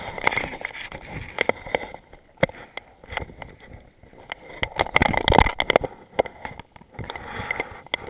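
Water splashing in a shallow rocky river as a salmon is held and released by hand, with irregular knocks and rustles of clothing rubbing on the body-worn camera. The loudest splashing and knocking comes about five seconds in.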